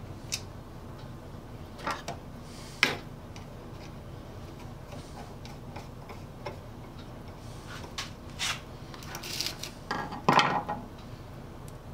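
Scattered light clicks and clinks of small metal saw hardware and a steel saw plate being handled against a wooden saw handle on a wooden workbench, as the handle is fitted back onto the saw. The loudest clatter comes near the end.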